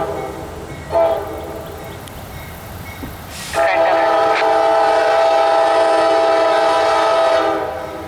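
Diesel locomotive air horn on NS 4037, a GE AC44C6M, sounding two short blasts, at the start and about a second in, then one long blast that fades out near the end.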